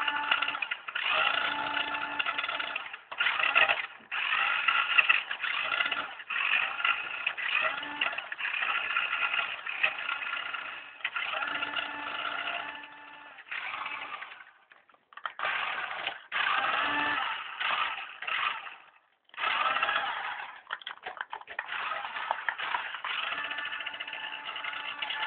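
Toy RC car's small electric motor and gears whining in repeated stop-start bursts of a second or two as it is driven, with a couple of short pauses about halfway through.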